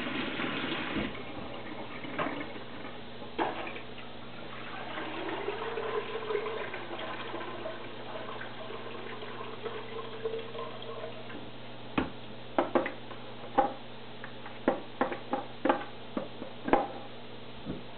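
A kitchen tap runs into the sink and is shut off about a second in. Then come faint handling sounds of the Via Aqua VA750 canister filter's plastic parts, and a quick run of about a dozen sharp clicks and knocks in the last six seconds, over a steady low hum.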